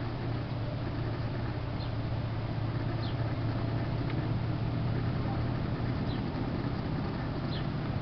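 Small birds giving four short, high chirps, each dipping slightly in pitch, spaced a second or more apart, over a steady low rumble.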